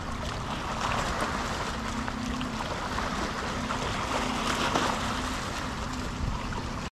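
Small waves lapping and splashing against a seawall and wooden dock pilings, with wind rumbling on the microphone and a faint steady hum underneath.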